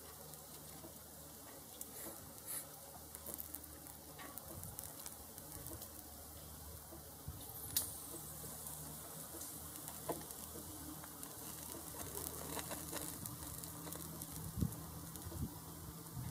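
Meat sizzling on a gas-fired churrasco rotisserie, with fat dripping and spattering in irregular pops over the flames. Underneath runs a steady low hum from the electric motor that turns the skewers.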